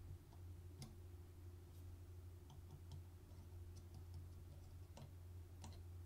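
Faint, scattered clicks of metal tweezers against the small steel parts of a Hasselblad 2000FC's shutter mechanism, the clearest about a second in and twice near the end, over a steady low hum.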